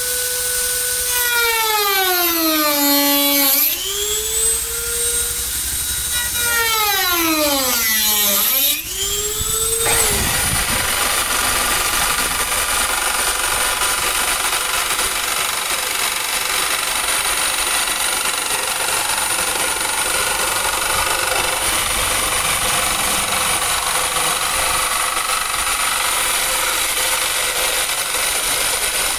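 Cordless Dremel rotary tool with a cutting disc, spinning at high speed and cutting into a plastic fender flare. In the first ten seconds its whine twice sags sharply in pitch under load and climbs back. After that it settles into a steady, noisier whine as the disc keeps cutting.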